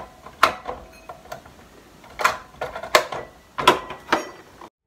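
Metal hole saws and a hard plastic Bosch hole saw case clacking and clicking as the case is handled and shut, about five sharp knocks a second or so apart.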